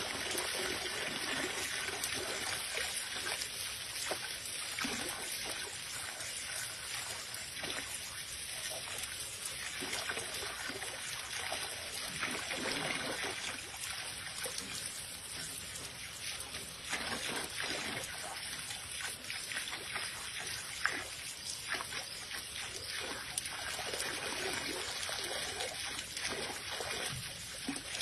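A thin stream of water from a hose nozzle running steadily into a plastic basin, trickling and splashing over a raccoon's paws as it rubs them in the flow. One short sharp tap about three-quarters of the way through.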